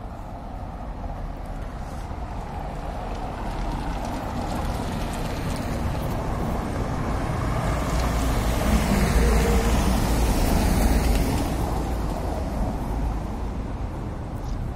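Car driving past on wet cobblestones, its tyre and engine noise building to a peak about nine to eleven seconds in, then fading.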